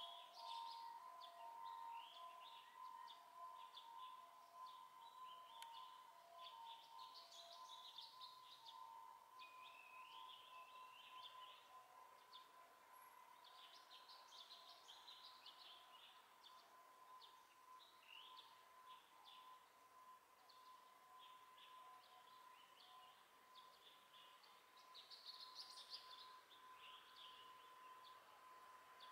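Small birds chirping and twittering in short, repeated bursts, faint. A thin steady high tone sounds underneath; it pulses in the first few seconds and then holds steady.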